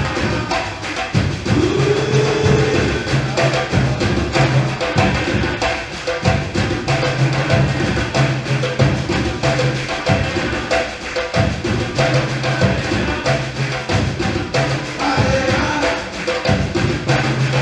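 Percussion ensemble playing a Bahian-style drum rhythm. Deep bass-drum notes come in repeated phrases under a dense, steady run of sharp stick and hand strokes.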